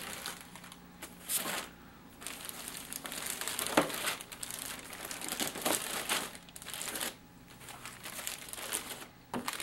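Clear plastic bags holding plastic model-kit sprues crinkling on and off as they are handled and packed into a cardboard box.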